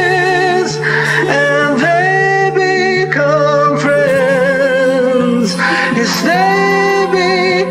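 Male and female voices singing a duet in long held notes with vibrato, over a steady sustained low accompaniment.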